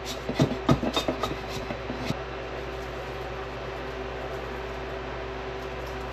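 A few light clicks and knocks in the first two seconds from handling dried oregano, a funnel and a glass jar. Under them a steady low hum with a faint tone runs throughout.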